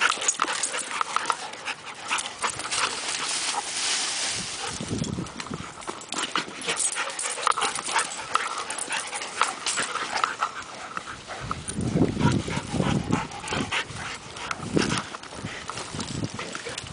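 Two dogs, a Rottweiler mix and a shaggy grey dog, play-wrestling: scuffling and panting with many small clicks, and louder low stretches about five and twelve seconds in.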